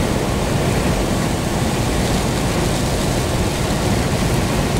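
Steady noise inside a car driving in rain: tyres hissing on the wet road over the engine and road noise, heaviest in the low end.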